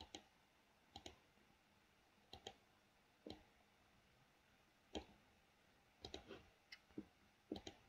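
Faint, scattered clicks of a computer mouse and keyboard, about a dozen, some in quick pairs and a short cluster near the end.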